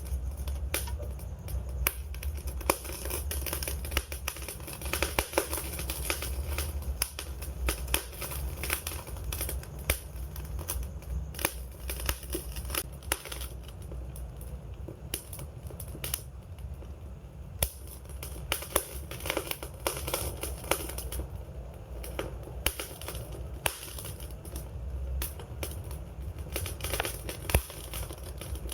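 Wood fire burning, crackling and popping in irregular sharp clicks over a low steady rumble of the flames.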